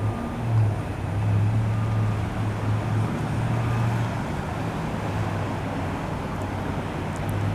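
Cars of a long CSX freight train rolling past on the rails: a steady rumble with a low hum.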